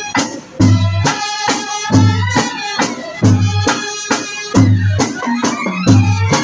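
Brass band playing a melody, trumpets and trombone together, over loud beats on large bass drums and a barrel-shaped hand drum, with a short drop in the music just after it begins.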